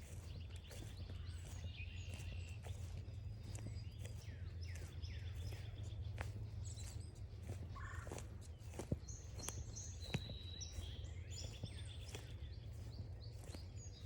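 Several wild birds chirping and calling, many short down-slurred notes, over a steady low rumble. Footsteps on the trail, with a sharp click about nine seconds in.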